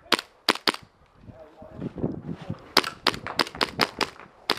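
Custom Hi-capa gas blowback airsoft pistol firing as sharp snapping shots. There are three in the first second, then a fast string of about eight more starting just under three seconds in, and a last one near the end.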